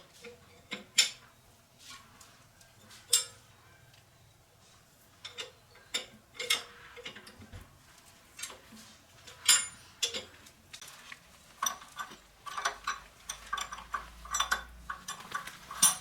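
Irregular metallic clinks and taps of tools and small metal parts being handled, scattered and sparse at first, then coming thick and fast over the last few seconds.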